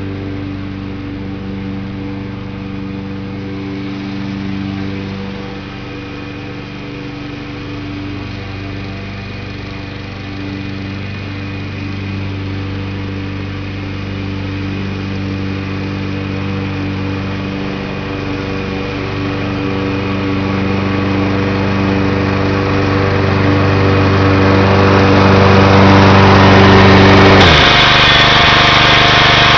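John Deere 14SE walk-behind lawn mower engine running steadily while cutting grass, getting louder as it comes closer. Near the end the engine note drops sharply in pitch and a loud hiss takes over.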